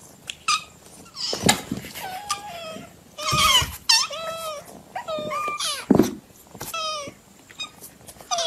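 A group of kittens meowing: many short, high-pitched calls, one after another and sometimes overlapping. Two sharp knocks, about one and a half seconds in and near six seconds, stand out among them.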